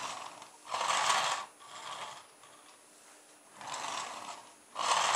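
Small plastic toy car rolled back and forth by hand across a wooden floor, its hot-glue-coated wheels winding a rubber band onto the back axle: a series of short rolling rasps, each under a second, with the loudest near the end.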